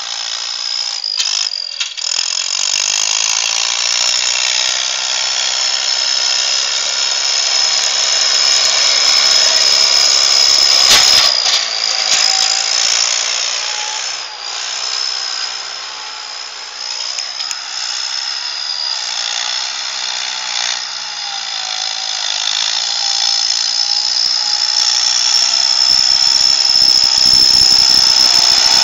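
Fiat 55-56DT tractor's diesel engine running hard at high revs, with a steady high-pitched whine over the engine noise. It dips briefly in the middle and grows louder near the end as the tractor comes close.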